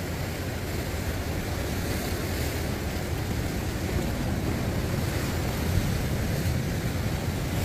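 Sea surf washing steadily over the rocks, with wind buffeting the microphone.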